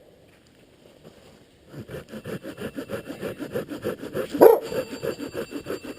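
Silky Pocket Boy folding saw cutting wood in quick, even strokes, starting a little under two seconds in. A dog barks once about four and a half seconds in.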